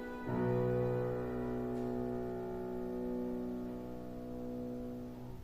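Closing piano chord of the song's accompaniment, struck once about a third of a second in and left to ring, fading slowly until it is cut off near the end.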